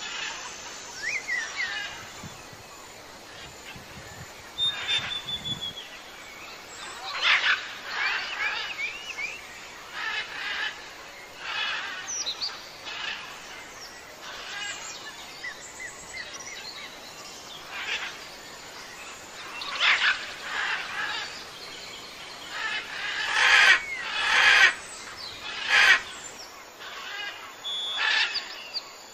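Several birds chirping and calling: short whistled notes, quick trills and gliding chirps that come in bursts every second or two, loudest a little past the middle.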